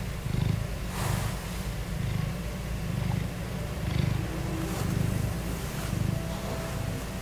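A tabby cat purring close to the microphone: a low rumble that swells and fades with each breath, about once a second. It is the contented purring of a cat in a good mood.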